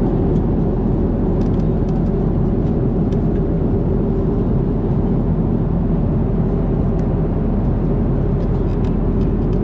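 Steady, even cabin noise of a jet airliner in flight, deep and unchanging, with a few faint clicks.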